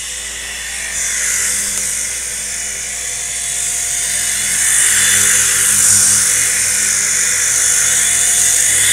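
Syma S026G toy RC Chinook helicopter in flight: its small electric motors and twin rotors make a steady high whine, growing louder from about four seconds in as it comes closer.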